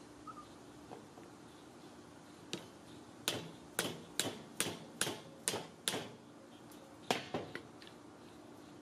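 A hammer knocking a hubcap onto the axle of a Weber kettle grill's wheel: about eight sharp strikes at roughly two a second, then two more near the end.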